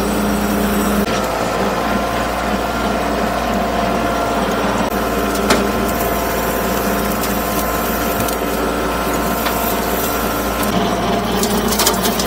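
Bobcat CT2025 compact tractor's diesel engine running steadily, its note shifting about a second in. A few sharp clicks and knocks sound over it, with a quick run of them near the end.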